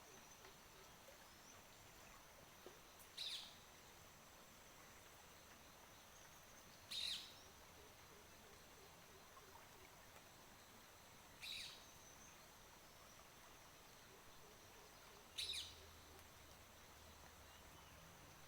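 A bird giving four short, sharp calls about four seconds apart, over a faint steady high-pitched tone.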